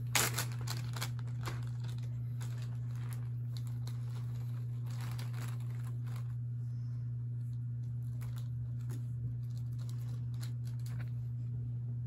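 Plastic zip-top bag crinkling as lubed keyboard switch springs are shaken out of it onto a paper towel, in scattered short rustles and clicks, thickest in the first second or so. A steady low hum runs underneath.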